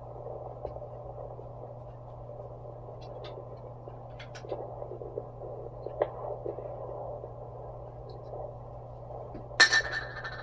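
Handheld fetal Doppler's speaker giving a steady muffled hiss over a low hum as the probe is moved over the belly, searching for a fetal heartbeat that is still too early in the pregnancy to pick up. A few faint clicks come in the middle, and a sudden loud rustling clatter comes near the end.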